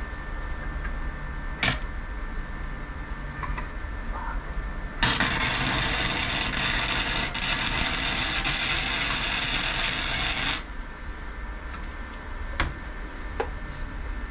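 Arc welder laying a tack weld on steel square tubing: a dense, crackling hiss that starts about five seconds in, runs for about five and a half seconds and cuts off sharply. A few sharp clicks come before and after the weld.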